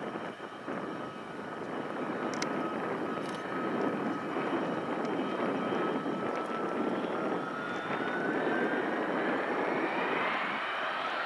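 Four Pratt & Whitney F117 turbofan engines of a C-17 Globemaster III running on the runway, the noise growing steadily louder. Over the last few seconds a whine rises in pitch as the engines spool up, typical of power being set for takeoff.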